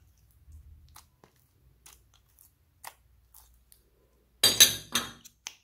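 Hands squeezing and working white slime: small sticky clicks, then a loud burst of crackling, squelching pops from trapped air about four and a half seconds in.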